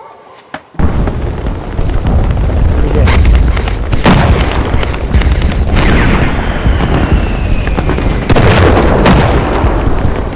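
Loud, rumbling buffeting noise on the camera microphone, starting suddenly about a second in and carrying on without a break.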